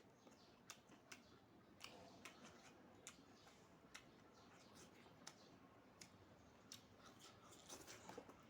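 Faint, irregular clicks and smacks of someone eating and chewing close to the microphone, about one or two a second.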